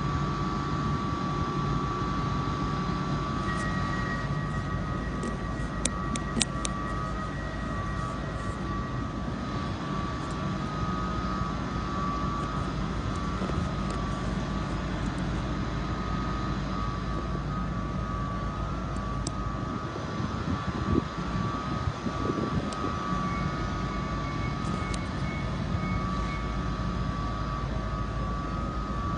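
Stadler-built Class 755 bi-mode train running at a platform: a steady hum with a high, even whine over it. A few short clicks come about six seconds in and again in the second half.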